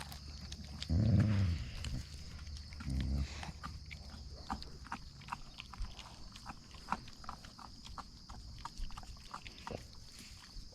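Wolfdogs feeding on a raw deer carcass: two short low growls about one and three seconds in, then a run of sharp crunches and cracks as they chew through bone and meat.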